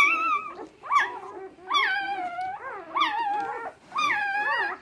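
Newborn puppies whining and squealing: a string of about five high-pitched cries, each rising and falling in pitch, roughly one a second.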